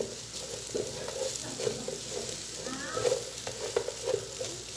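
Pork and beef cubes with onion and green pepper sizzling as they are sautéed in a frying pan, while a spatula stirs them with irregular scraping strokes against the pan.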